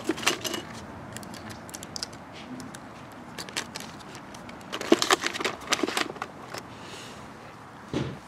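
Tackle boxes and lures being handled: a scatter of sharp clicks and rattles, busiest about five to six and a half seconds in, with a duller knock near the end.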